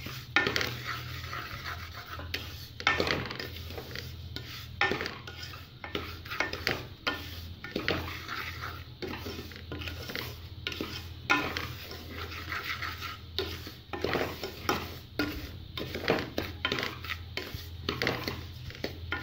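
Wooden spoon stirring and scraping dry semolina around a metal pot, in irregular scrapes and knocks about once or twice a second, as the semolina is roasted. A steady low hum runs underneath.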